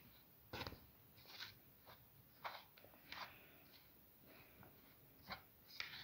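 A spoon stirring dry chickpea flour in a bowl, breaking up lumps. It makes a series of short, soft scrapes and crunches, roughly one or two a second.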